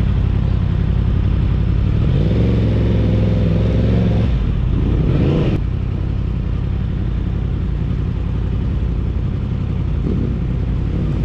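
Sport motorcycle engine with heavy wind rumble on the microphone. About two seconds in the engine note holds steady, then rises sharply in pitch as it revs and cuts off suddenly, with a fainter rise near the end.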